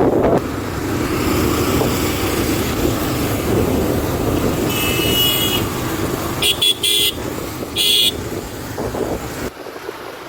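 Steady road and wind rush from riding in traffic, with a vehicle horn sounding for about a second around the middle, followed by three short honks.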